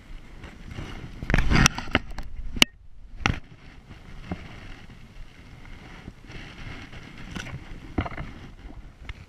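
Water splashing and sloshing as a brown trout is handled in a landing net and held in the water for release, loudest in a short splash about a second and a half in. A few sharp knocks follow.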